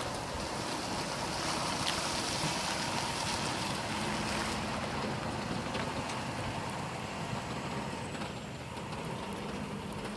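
Diesel semi-truck engine running as the rig pulls a loaded lowboy trailer away, growing fainter near the end.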